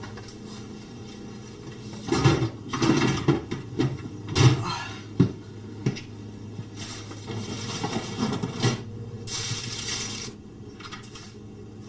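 Kitchen handling sounds: a run of knocks and clinks of a glass and other things set down on a counter, followed by a few seconds of rustling, over a steady low hum.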